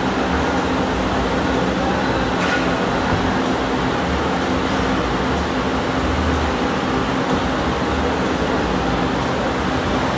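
Steady fan noise with a low hum, even throughout.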